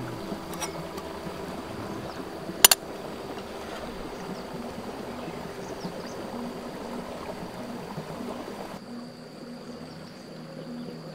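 Stream water flowing, with a steady high insect drone over it and a sharp click about two and a half seconds in. The rush of water thins near the end.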